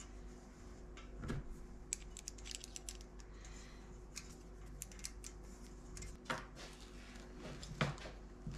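Small metal fittings being handled by hand at a workbench: light metallic clicks and jingles, with three soft knocks, the loudest near the end.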